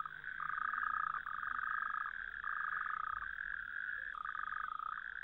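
Male toads calling together from a pond: overlapping trills made with an inflated throat sac. One higher trill runs on without a break, while another sounds in calls of about a second each, separated by short gaps.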